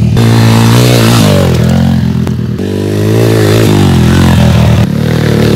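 Pit bike's small single-cylinder four-stroke engine revving hard under acceleration, its pitch climbing and dropping several times as the rider works the throttle and gears, with a couple of abrupt breaks.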